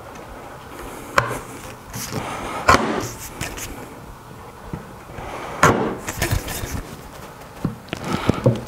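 Sharp chisel paring down through the end grain of an oak tenon onto a chopping block, rounding over its corners: crisp crackling and splintering of the wood fibres, with three sharper knocks, about a second in, near three seconds and near six seconds.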